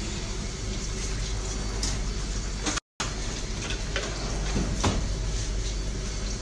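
Hot oil sizzling steadily as sesame-topped rounds of date-bread dough deep-fry in a wide pan, with a few faint clicks. The sound cuts out for a split second about three seconds in.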